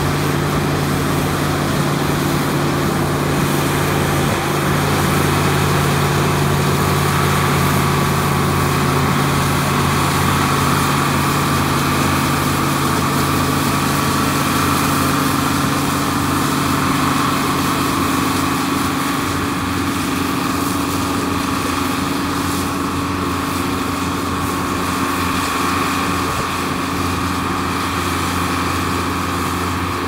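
Steady drone of farm machinery engines at working speed, with an International 1420 combine cutting and threshing wheat close by. The drone eases off a little in the second half as the combine pulls away.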